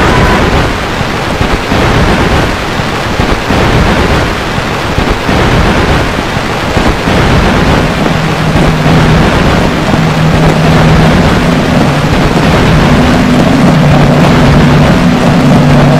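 Experimental turntable noise: a loud, dense roar of noise played from vinyl records on turntables. Low humming tones come in about halfway through and break up as they go.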